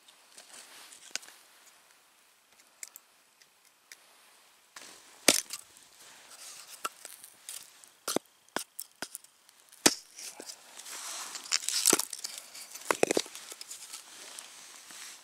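Hatchet chopping a block of wood into kindling on snow: a few sharp chops, then the crackle of wood splitting and splintering apart.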